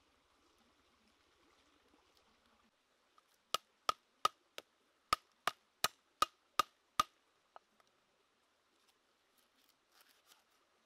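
A knife striking a wooden chopping board ten times at about three strikes a second, each a sharp chop with a brief metallic ring, a few seconds in. Faint cutting sounds follow near the end as lemongrass is sliced.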